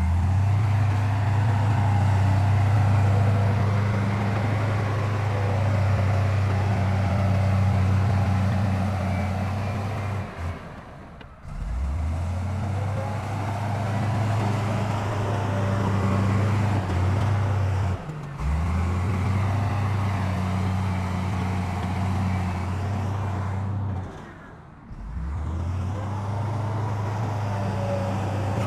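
Heavy diesel engines of earth-moving machinery running steadily, a deep constant drone. The sound breaks off briefly three times and comes straight back.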